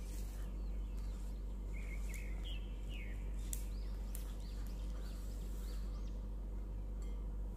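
Silicone spatula working creamed butter and sugar against the sides of a glass bowl, with faint soft scrapes and clicks, over a steady low hum. Short high chirps come and go throughout.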